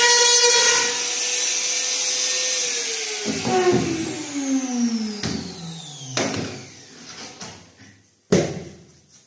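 Compact trim router motor running at a steady high pitch, then switched off about two and a half seconds in and spinning down in a long falling whine. Sharp knocks follow as tools and clamps are handled, the loudest one near the end.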